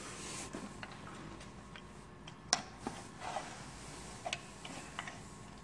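Scattered small plastic clicks and taps as gloved hands handle and open a plastic housing with wiring and a circuit board inside, the loudest click about two and a half seconds in.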